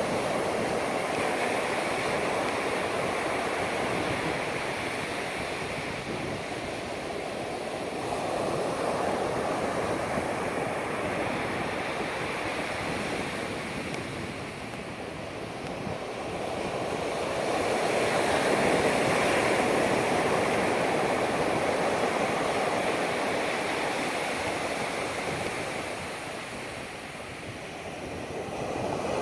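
Pacific Ocean surf breaking and washing up a beach: a continuous rush that swells and ebbs, loudest a little past halfway.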